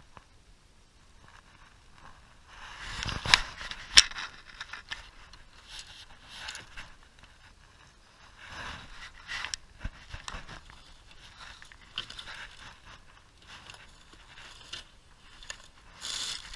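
Gear being handled on a bass boat deck: two sharp knocks about three and four seconds in, then scattered scrapes, rustles and clunks.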